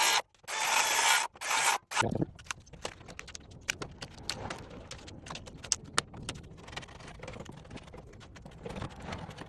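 A power saw with its blade set to 3/4 inch depth cutting wood in three short bursts about a second and a half long each, cutting the mortise. Then a run of light, irregular knocks, taps and scrapes as the wood is worked.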